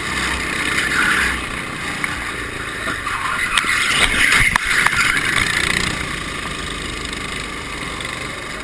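Go-kart engine running at speed, heard from the driver's seat, with a few short knocks about halfway through.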